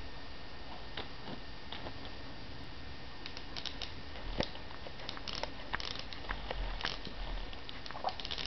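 Small dog chewing and mouthing a plush toy frog: irregular soft clicks and crackles, a few at first and busier from about three seconds in.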